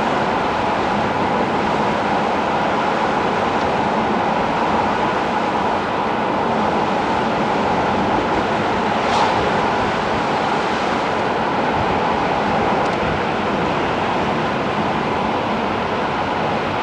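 Steady engine, tyre and wind noise heard from inside a moving car.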